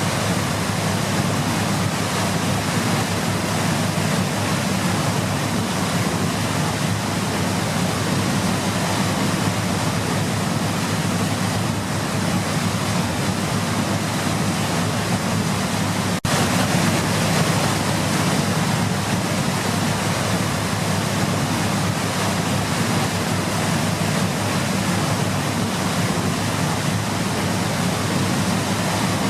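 Waterfall: a steady, unbroken rush of falling water, with a momentary dropout about halfway through.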